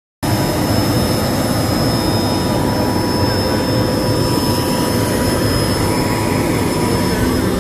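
Turbines of a parked business jet running steadily: a loud, even rush with a constant high whine on top. It starts after a brief dropout at the very start.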